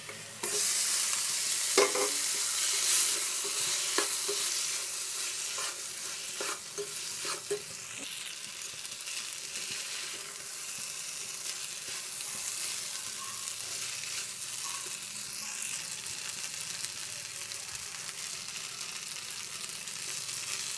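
Hot pan of masala sauce sizzling loudly as boiled pasta goes in, starting suddenly about half a second in and easing to a steady sizzle as it is stirred, with short knocks of the stirring utensil against the pan.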